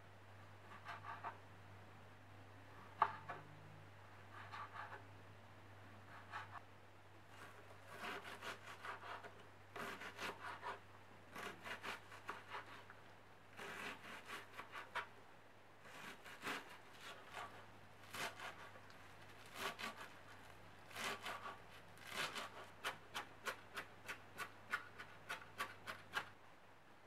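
Chef's knife cutting vegetables on a wooden chopping board: cherry tomatoes, then red onion and coriander. The blade knocks the board in short runs of strokes, ending in a quick steady run of about four chops a second.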